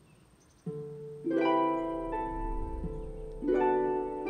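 Background music of plucked-string notes. It starts abruptly under a second in, builds with a second entry a moment later, and a new chord strikes about two seconds after that.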